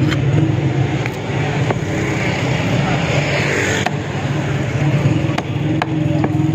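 Steady low engine hum, as of a motor vehicle running close by, under scattered sharp clicks and knocks from a fish cutter's knife and a fish on a wooden chopping block. A scraping hiss rises in the middle and stops abruptly just before the four-second mark.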